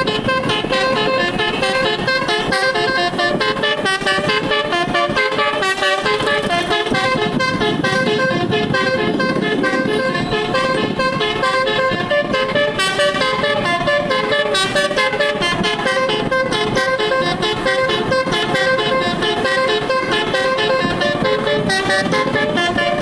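Indonesian telolet bus horn, a multi-trumpet air horn set with all its tones switched on, playing rapid runs of changing notes like a tune. It sounds loud and without a break.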